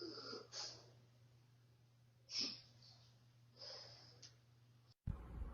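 A few short, soft breaths or sniffs over a faint steady hum. About five seconds in it cuts off abruptly and a louder low rumbling noise takes over.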